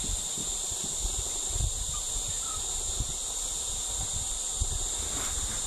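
Steady, high-pitched drone of an insect chorus, continuous and unchanging, with scattered low thumps underneath.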